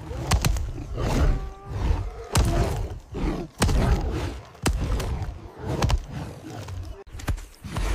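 Heavy thuds about once a second, mixed with animal grunts and roars, including a short pitched call about a second and a half in.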